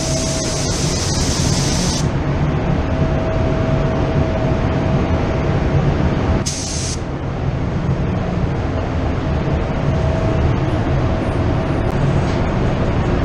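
Iwata LPH 400 spray gun with a 1.8 tip spraying a tack coat of peelable paint: a loud air hiss for about the first two seconds, and a short half-second burst around the middle. Under it runs a steady low drone.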